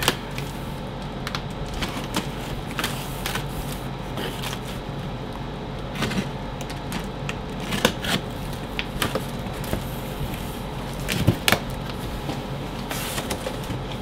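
A large cardboard box being opened by hand: scattered scrapes, rustles and knocks of the cardboard flaps and a utility knife cutting along the box edge, over a steady low hum.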